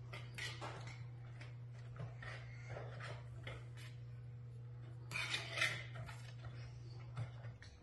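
Whisk stirring cake batter in a plastic mixing bowl: a string of light clicks and scrapes against the bowl, with a louder flurry of scraping about five seconds in. A steady low hum runs underneath and stops near the end.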